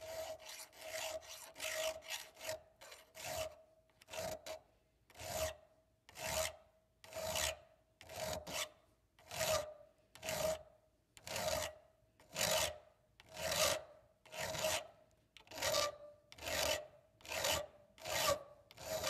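Round hand file rasping across a steel knife blade clamped in a vise, refiling the weld-filled open stop notch. Quick short strokes for the first few seconds, then a steady rhythm of about one stroke a second, each stroke carrying a steady ringing tone.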